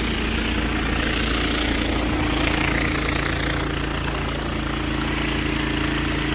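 Hot-water pressure washer running: a steady engine hum under the loud, even hiss of the spray.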